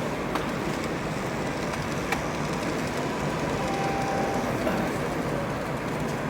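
Steady hum of a busy exhibition hall with a model train running on a layout, and a couple of light clicks.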